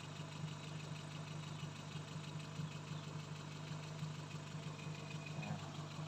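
Toyota 2E carbureted four-cylinder engine idling steadily and faintly. It is being run so its vacuum hoses can be checked for leaks, which the owner suspects are behind its hard starting.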